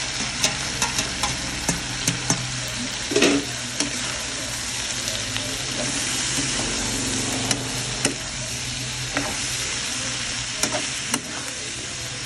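Sliced vegetables and pork stir-frying in a hot nonstick wok: a steady sizzle, with irregular clicks and scrapes of a metal spatula against the pan as it stirs.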